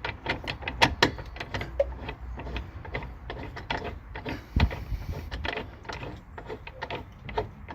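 AL-KO caravan wheel lock being wound in by hand with its key, a run of irregular metallic clicks and scrapes as the spigot threads into the chassis, with a dull knock about halfway through.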